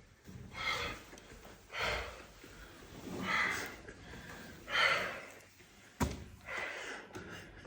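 A person breathing heavily and audibly, about five noisy breaths a second and a half apart, with one sharp click about six seconds in.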